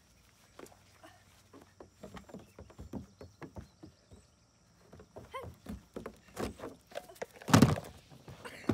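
Goat hooves clattering and tapping on the hard plastic lid of a storage box, a run of short sharp knocks, with one louder thump near the end.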